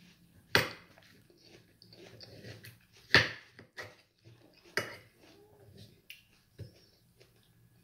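A metal fork clinks sharply against the bowl three times as chunks of watermelon are speared: about half a second in, around three seconds, and near five seconds. Between the clinks comes quiet, wet chewing of watermelon.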